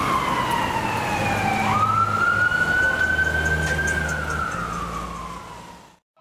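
Fire truck siren on wail. The tone slides down, snaps back up about a second and a half in, climbs slowly, then falls again. A low rumble runs underneath, and the sound fades out near the end.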